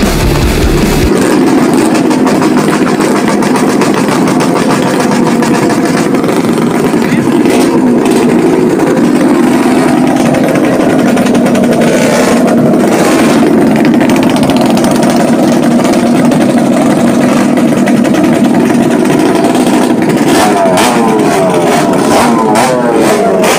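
Many motorcycle engines running and being revved together in a slow-moving column, loud and continuous, with quick rising and falling revs near the end.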